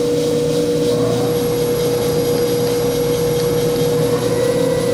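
Ransome 200P welding positioner's electric drive motor and reduction gearing running under power, a steady whine with a low hum beneath.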